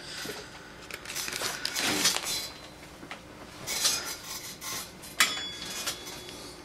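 Handling noises from small tools and parts on a repair bench: rustling and scraping with light clinks. A longer run lasts about the first two and a half seconds, followed by short bursts about four and five seconds in.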